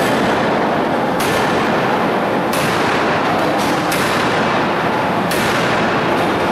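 Hydraulic open-die forging hammer striking a red-hot steel billet stood upright on the anvil: four heavy blows about 1.3 seconds apart over a steady loud din.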